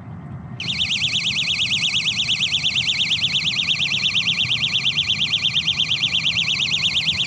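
Electronic fishing bite alarm going off with a rapid, steady warbling beep, set off by a fish taking the bait. It starts about half a second in and keeps sounding while the rod is picked up and the fish is hooked.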